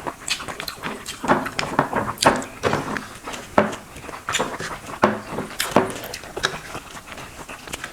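Close-miked eating sounds: a person chewing and smacking on fried fish and water-soaked rice (pakhala), with wet mouth clicks that come at irregular moments.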